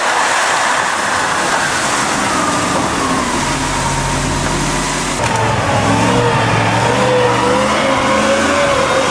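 ZIL six-wheel-drive army truck's engine working hard under load as the truck churns through deep snow and slush, over a steady rushing noise. The engine note grows stronger about halfway through and climbs in pitch toward the end.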